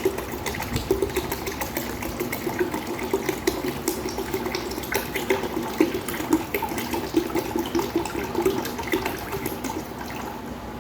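Water being poured into a container, splashing and gurgling as it fills, easing off just before the end.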